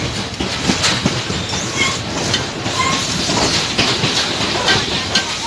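Passenger train carriage running along the track, heard from inside by an open doorway: a steady rumble with irregular wheel clatter and knocks, and a few short high squeaks.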